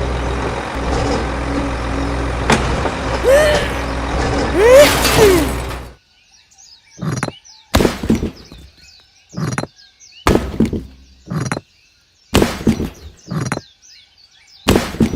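A steady engine-like rumble that cuts off suddenly about six seconds in. It is followed by about ten short, separate knocks or thuds, with faint bird chirps between them.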